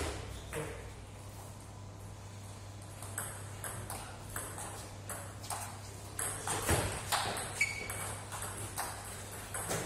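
Table tennis balls clicking off bats and tables in rallies, irregular quick clicks from more than one table at once.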